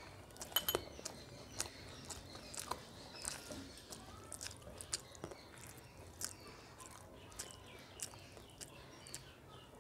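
Fingers mixing and squeezing rice with cooked taro-leaf greens on a steel plate: soft, irregular wet squishes and small clicks, a few each second.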